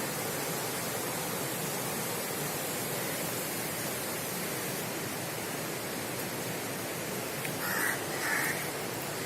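Steady rushing outdoor noise, an even hiss with no distinct events. A bird calls a few short times near the end.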